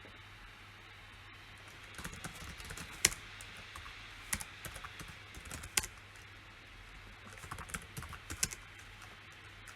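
Computer keyboard typing in three short bursts of keystrokes after a brief pause, with a few louder single clicks standing out, over a faint steady low hum.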